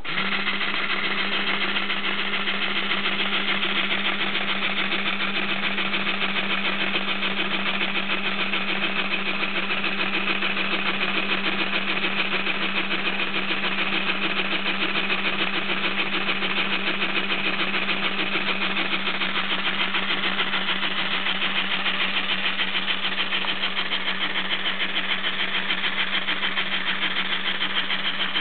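Motor-driven LEGO compressor starting up abruptly and running steadily, a fast even mechanical chatter over a steady hum.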